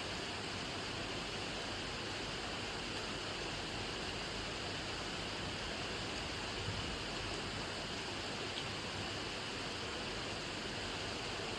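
Steady rainfall: an even, unbroken hiss, with a faint tick of a single drop now and then.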